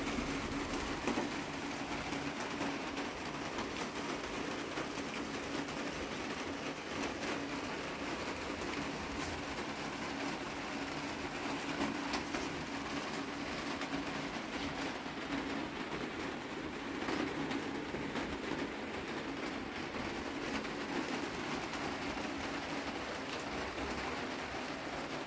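Steady hiss of heavy rain falling, with a low steady hum underneath.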